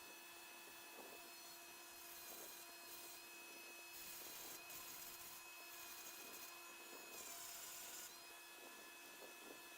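Faint rotary tool with a burr running at steady speed, with short scratchy grinding passes against the workpiece; during the longest pass, a little past halfway, the whine dips in pitch as the burr bites.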